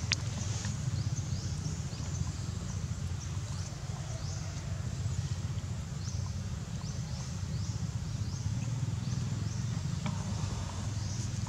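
Outdoor ambience: a steady low rumble, with short, high, falling chirps repeating every second or so.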